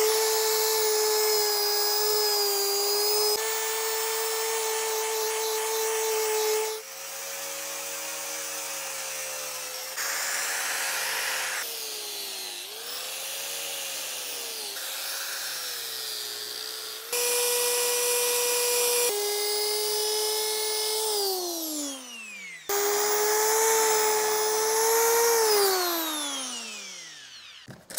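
Electric power tools on carved wood: a drill spinning a plastic bristle brush to scrub the charred blackness off the wood, then an angle grinder with a sanding disc. A steady motor whine that sags and wobbles in pitch under load, broken into several pieces, and winds down with a falling whine near the end.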